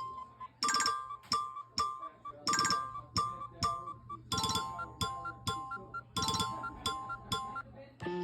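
An iPhone ringtone from iOS 17 playing: a repeating figure of short, bright chiming notes struck a few times a second, each dying away quickly, with lower notes joining about halfway through.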